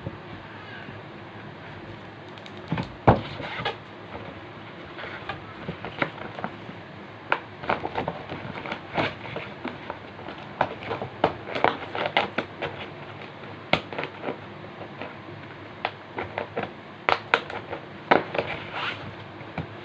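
Clear plastic bag crinkling and rustling as it is handled and folded, in irregular sharp crackles, the loudest about three seconds in.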